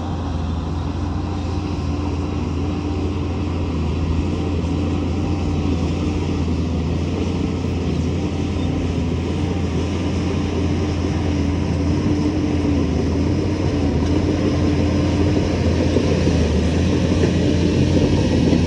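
Heavy diesel engine of an earthmoving machine running steadily under load: a continuous low drone that grows slightly louder.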